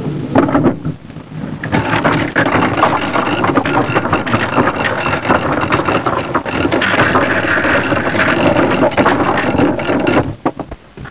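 Boat engine running loudly with a busy mechanical clatter, then dropping away near the end: the engine failing from a cracked cylinder head that has worked loose.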